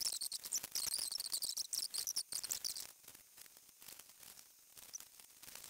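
Tangled metal necklace chains and beads clinking and rattling against each other as fingers pick at them to untangle them: a dense run of small, high clicks that thins out about three seconds in to fainter, scattered clicks.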